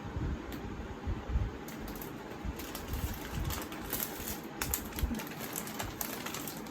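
Irregular soft clicks, taps and low knocks of household objects being handled, with faint rustling.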